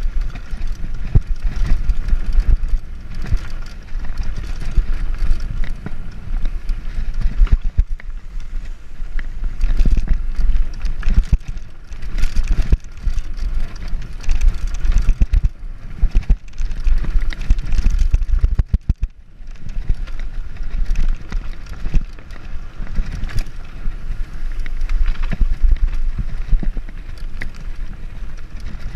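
Mountain bike riding fast down a bumpy dirt singletrack: wind rumbles on the microphone over the constant rattle and knocks of the bike and tyres over the rough trail, briefly easing about two-thirds through.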